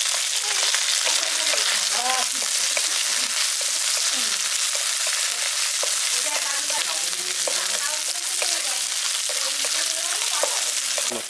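Chopped capsicum and onion sizzling in a little hot oil in a non-stick wok, with a steady hiss, while a wooden spatula stirs them and scrapes the pan in short ticks.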